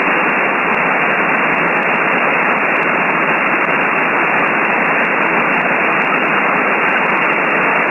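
Steady shortwave static hiss from a software-defined radio receiver tuned to the 20-metre amateur band in upper sideband, with no station transmitting on the frequency. The hiss is cut off sharply below and above the narrow voice passband of the receiver's filter.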